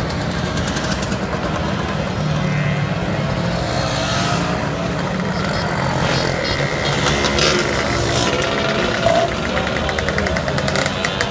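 A stream of Vespa and Lambretta scooters riding past in a mass procession, many small engines running at once. Near the end one scooter's engine comes through close by with a rapid, even rattle.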